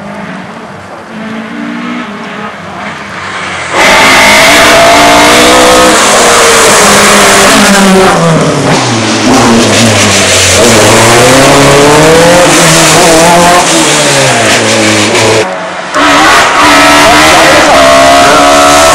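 Rally car engines at full throttle, the pitch climbing and dropping repeatedly through gear changes. For the first few seconds a car is heard fainter and farther off; about four seconds in, the sound cuts abruptly to a very loud, close car, and again near the end to another close car, a Ford Escort Mk2 rally car.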